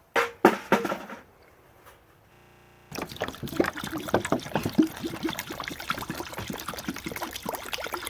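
Water running and splashing into a container. The steady running starts about three seconds in, after a few short loud knocks at the start.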